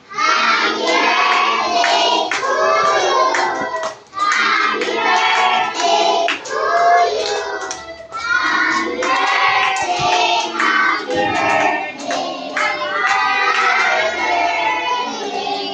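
A group of children singing a song together in chorus and clapping their hands along in time.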